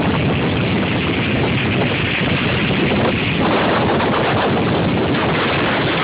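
Storm wind blowing hard across a phone's microphone, a loud, steady rush of noise with no letup.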